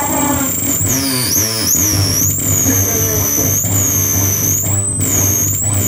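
Live experimental electronic music: a high whistling tone swoops down and back up about once a second over a steady low hum, with warbling, gliding sounds in between.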